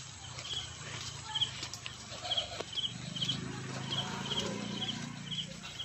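Short, high chirps repeated over and over, a couple a second, from a small calling animal, over a faint low murmur that grows louder in the second half.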